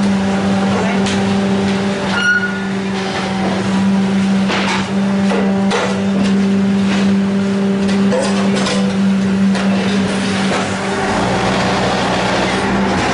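A machine running with a steady hum, with repeated short knocks and clanks over it. The running sound shifts about eleven seconds in.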